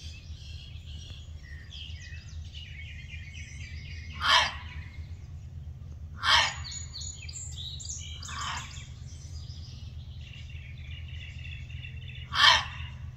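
Gray fox barking: three loud, short barks several seconds apart, with a fainter one between the second and third, over continuous birdsong.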